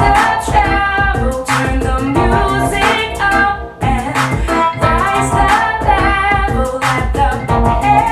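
A pop song with a woman singing over a steady beat, played back through car audio speakers.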